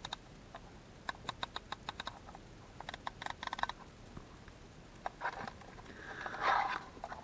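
Small plastic switches on Bee*R rev limiter control boxes clicking, in two quick runs of light clicks about a second in and about three seconds in, as a fake unit is compared with a genuine one. Near the end the plastic boxes rustle and knock as they are handled.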